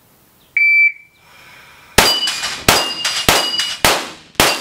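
Shot timer's start beep about half a second in, then rapid pistol fire at a steel plate rack from about two seconds in: five shots a little under two a second, most followed by the brief ring of a struck steel plate.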